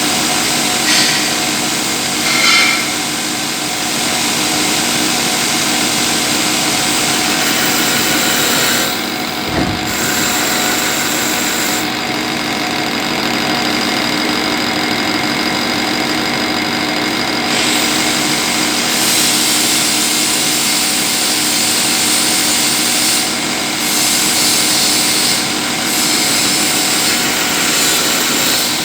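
CNC lathe turning a pulley: the machine runs steadily with several humming tones under a high cutting hiss, which falls away for a few seconds near the middle before returning.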